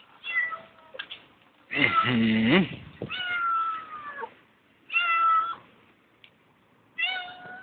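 A hungry cat meowing again and again in heartbreaking calls, about five of them. The one about two seconds in is the loudest and longest, and the next falls slowly in pitch. She is begging for food.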